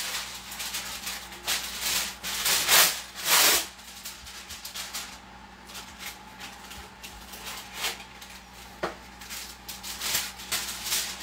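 Irregular scraping and rubbing strokes of hands working food at a kitchen sink, strongest a few seconds in, with a sharp click near the end.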